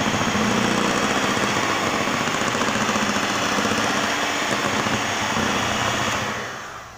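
Electric hand mixer running steadily, its beaters whisking oil-and-milk cake batter with flour to break up lumps and keep air in it; the motor winds down and stops near the end.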